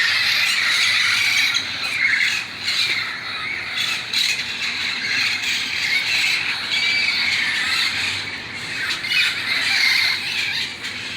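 A large flock of feral parrots calling together: a constant din of overlapping shrill squawks and screeches.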